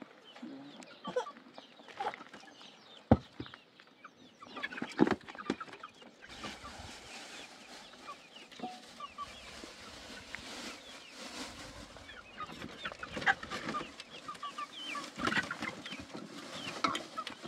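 Chickens clucking in short repeated calls, with a sharp knock about three seconds in and a steady rushing noise underneath from about six seconds on.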